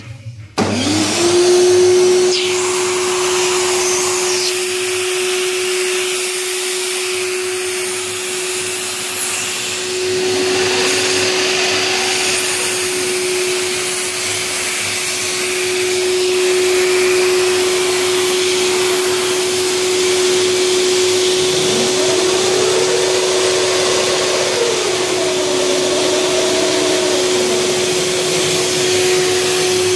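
Vacuum cleaner switched on about half a second in, its whine rising quickly and then running at a steady pitch over rushing air, as its suction spins the turbine that drives a 3D-printed mini lathe.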